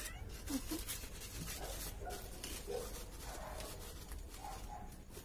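Crepe paper rustling and crinkling as it is pinched and gathered by hand into a ruffled sleeve: a run of soft, irregular crackles.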